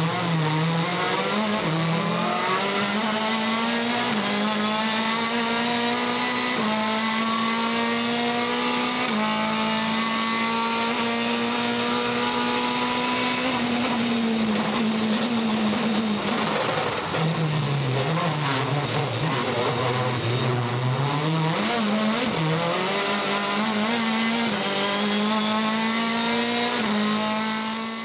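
A World Touring Car Championship racing car's engine heard onboard at full throttle. The revs step up through the gears near the start and are then held high. About seventeen seconds in they drop low and climb back up, and the sound fades out at the very end.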